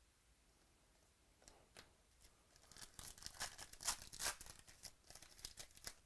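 Trading-card pack wrapper being torn open and crinkled: a quick run of sharp crackling rips and crinkles that starts about a second and a half in.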